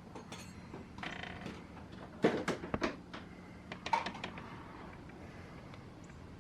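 A short creak about a second in, then a cluster of sharp knocks and clicks and one more knock a little later, like something being handled or a door being worked.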